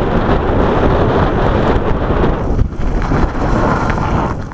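Wind buffeting the microphone during a downhill ride on a gravel trail, a loud rumbling rush that eases a little about halfway through.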